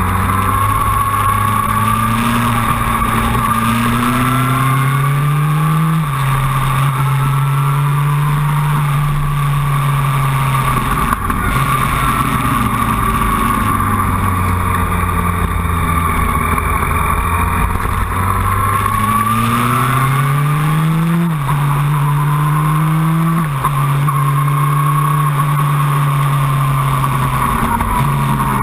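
Motorcycle engine heard from the saddle, accelerating through the gears: its pitch climbs and then drops sharply at upshifts about six seconds in and twice more near the end, with a fall in pitch at about eleven seconds as the rider eases off.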